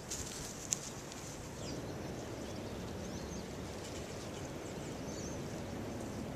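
Outdoor wind noise on the microphone, steady throughout, with a few faint bird chirps near the middle.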